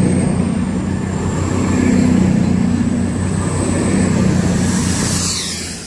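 CrossCountry Class 220 Voyager diesel-electric multiple unit running past along the platform: a steady drone from its underfloor diesel engines over wheel-on-rail rumble, with a thin high whine above. The sound fades away about five and a half seconds in as the train clears.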